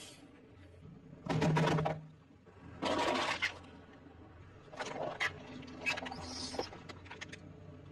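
A car tyre crushing plastic toys, packaging and a foil tray: four short bursts of crunching and crackling, each about half a second long, with quieter gaps between them.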